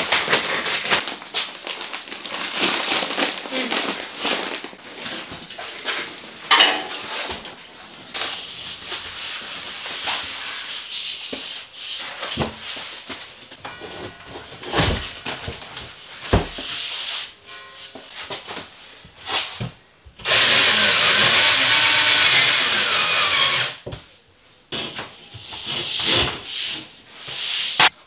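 Building work: a run of knocks, taps and clatter from hand tools and materials, then a power tool running steadily for about three and a half seconds, starting about twenty seconds in.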